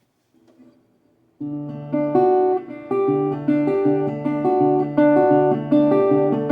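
Resonator guitar played with a pick: after a short pause, a repeating picked pattern of single notes comes in about a second and a half in and keeps an even rhythm. The sound comes out shaky, which the player puts down to the camera's mic not coping with the resonator's chorus.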